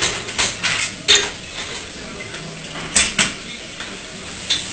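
Metal pots, pans and utensils clattering in a busy commercial kitchen: a run of sharp clanks in the first second or so, two more around three seconds in and one near the end, over steady kitchen background noise.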